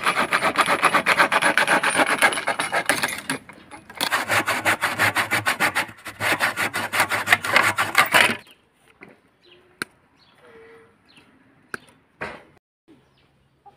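Hand saw cutting through a wooden rail in quick back-and-forth strokes, in two bouts with a short pause between. After that, a few sharp single snips of side cutters cutting chicken wire.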